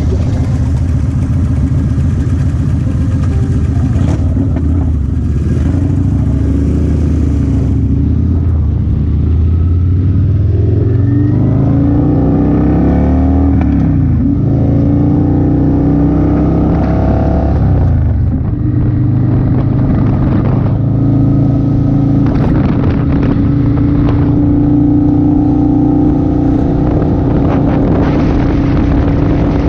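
Motorcycle engine running under way, with the revs climbing twice about halfway through and dropping after each climb as it shifts up through the gears, then holding steady.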